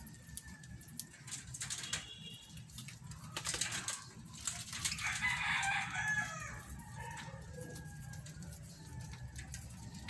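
Budgerigars chirping while they feed on leafy greens, with scattered sharp clicks and flutters. A rooster crows once about five seconds in, the loudest sound, lasting about a second and a half.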